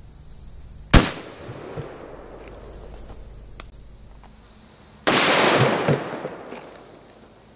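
12-gauge semi-automatic shotgun firing double-aught buckshot: one sharp blast about a second in with an echo trailing off. A second, louder and longer blast follows about four seconds later and dies away over a second or so.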